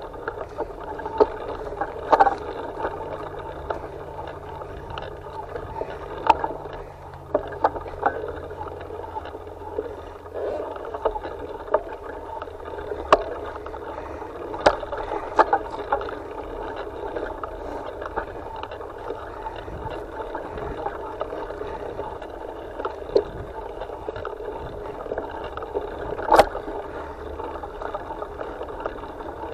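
Rough-trail ride heard from a handlebar-mounted camera: a steady rumble of the mount shaking and air rushing past, broken by frequent sharp knocks and rattles as the wheels hit bumps, loudest about 26 seconds in.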